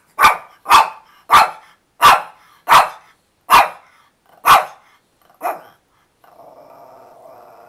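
A Shih Tzu barks sharply seven times in a steady rhythm, one bark every second or less, then gives one weaker bark. After a pause comes a quieter, drawn-out grumble. The barking is a small dog demanding treats.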